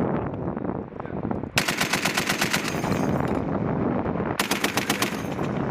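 Heavy machine gun firing two bursts of automatic fire, about ten rounds a second. The first burst lasts nearly two seconds; the second, about a second long, comes a second later.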